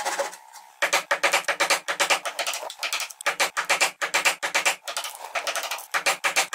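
Hand chisel paring and scraping pine end grain in a rapid series of short cuts, in several runs with brief pauses.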